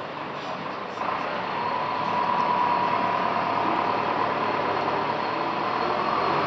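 A steady engine drone with a whine, getting louder about a second in.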